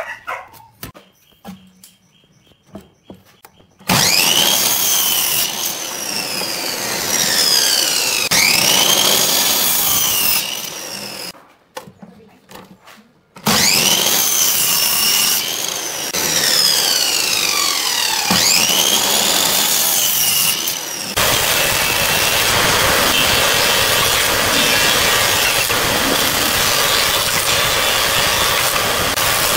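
Light taps and scrapes on a board, then an electric miter saw making several crosscuts through wood in two bursts, its whine dipping in pitch as each cut loads the blade and rising again after. From about 21 s a thickness planer runs steadily as a board feeds through it.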